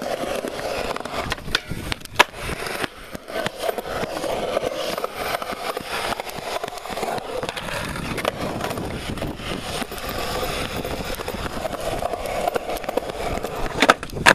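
Skateboard wheels rolling over concrete in a steady rumble, with a few sharp clacks of the board around two seconds in and again near the end.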